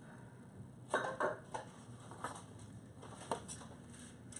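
Kitchen knife chopping pineapple on a cutting board: a handful of irregular knocks, the loudest cluster about a second in.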